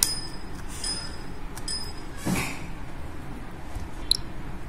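Plastic laptop keycap being pressed onto its retainer clips and snapping into place: several separate sharp little clicks with a softer knock between them.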